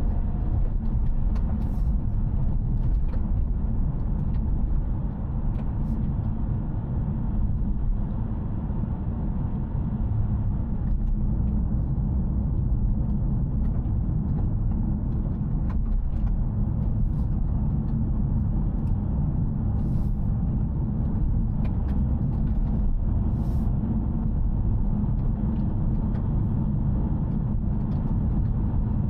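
Steady low in-cabin rumble of a Toyota GR Yaris driving at an even pace, engine and tyre noise blended with no revving or gear changes.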